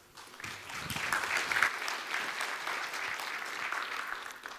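Audience applauding: a dense patter of clapping that swells during the first second, holds steady, then dies away near the end.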